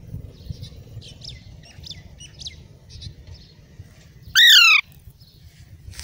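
Young Alexandrine parakeet giving one loud, short call that falls in pitch, about four and a half seconds in. Faint chirps come earlier, over a steady low rumble.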